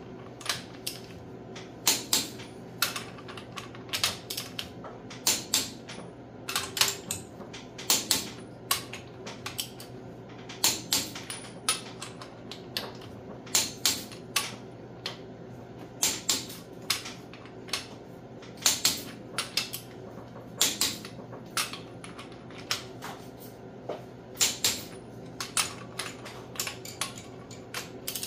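Torque wrench clicking over on one cylinder-head bolt after another as the head bolts are rechecked for torque. Sharp clicks come about once or twice a second, often in pairs.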